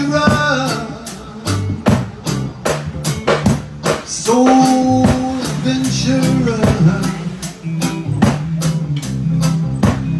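Live roots music from a small band: a drum kit keeping a steady beat, guitar, and a low bass line, with a voice singing a phrase of held notes about four seconds in.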